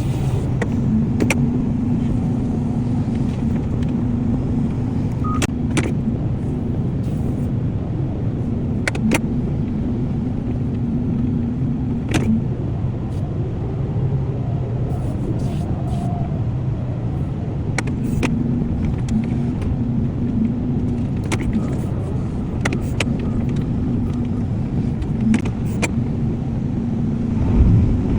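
Excavator's diesel engine running steadily, with a higher hum that drops out for a few seconds in the middle and comes back. Scattered sharp clanks and knocks throughout.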